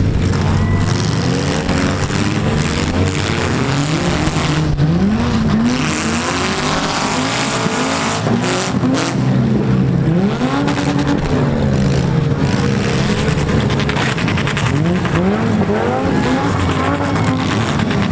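Demolition-derby compact cars running with their engines revving up and falling back over and over, several at once. Tyres squeal now and then, and several sharp bangs of impact go through it.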